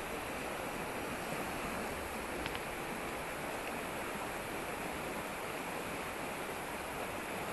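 A rocky mountain river rushing over stones in white-water rapids, making a steady, even rush. There is one faint tick about two and a half seconds in.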